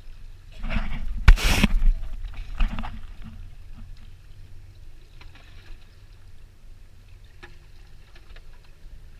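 Water splashing against a camera held at the waterline: a loud splash about a second in and a smaller one a second later, then quiet lapping water with a low rumble.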